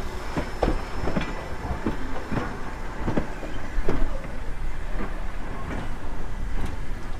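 A train hauled by a class L steam locomotive passing close by: a steady rumble of rolling wheels, broken by irregular clanks and knocks as the wheels run over the rail joints.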